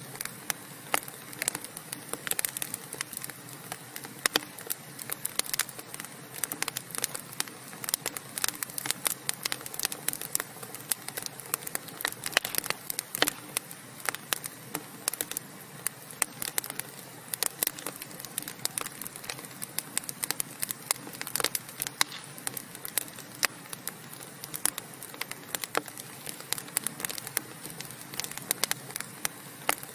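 Wood fire burning in a fireplace: steady crackling, with many irregular sharp pops and snaps over a low hiss.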